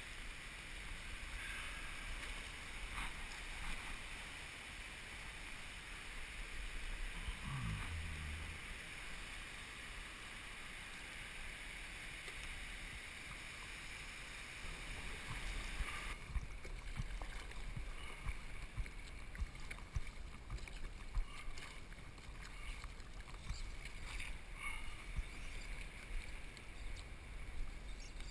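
Steady outdoor wind and surf noise, with a short low sliding sound about eight seconds in and scattered faint clicks and knocks in the second half.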